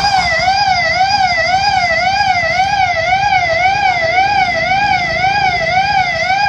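Old flood warning siren sounding its 'Danger' signal: a loud, steady warbling tone that rises and falls about twice a second without a break.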